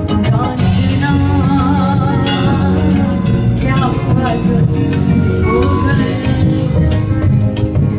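Live band music with drums and percussion, and a woman singing ornamented, wavering vocal lines over it.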